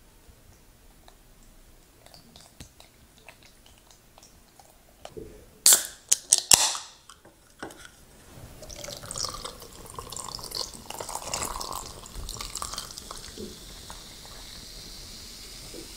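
Cream sauce drips and pours faintly onto pasta. About six seconds in comes a cluster of sharp clicks, the loudest thing here. Then soda is poured from a can into a tall glass packed with ice, crackling and fizzing, and it settles into a steady fizz near the end.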